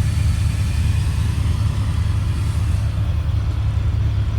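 The Caterpillar diesel engine of a 2004 Blue Bird All American school bus idling steadily, heard from inside the bus at the driver's seat.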